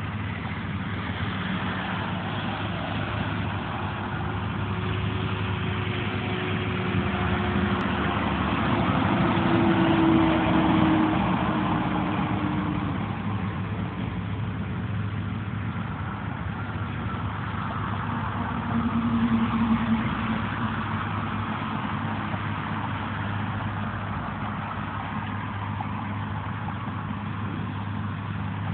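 Road traffic with trucks passing: a steady low engine hum under tyre and engine noise that swells as vehicles go by, loudest about ten seconds in with a slowly falling engine tone, and again briefly around nineteen seconds in.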